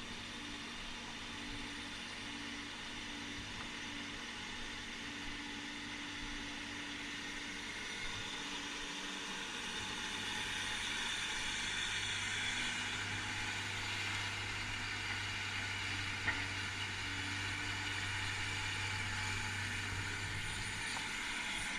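Diesel engine of heavy earthmoving machinery running steadily, growing somewhat louder about halfway through, with a single short knock about three-quarters of the way in.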